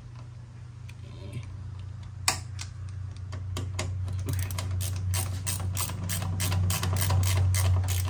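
Hand screwdriver driving a screw into the washer's sheet-metal front panel bracket, its ratchet clicking rapidly, starting about two seconds in and getting busier toward the end. A steady low hum runs underneath.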